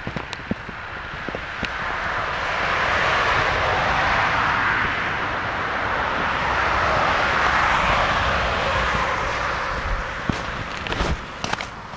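A road vehicle passing on the highway: its tyre and engine noise swells over a couple of seconds, holds, then fades away. A few footsteps on the snowy track bed near the end.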